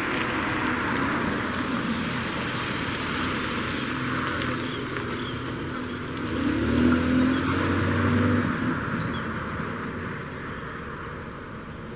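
Car engine and road noise of a car driving. About six seconds in, an engine grows louder and rises in pitch for a couple of seconds as a vehicle accelerates or passes, then fades back.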